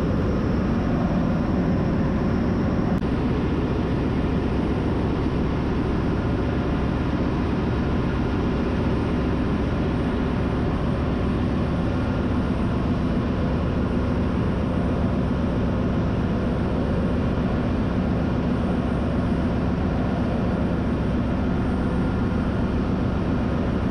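Ship's engine-room machinery running: a loud, steady drone and hum that does not change.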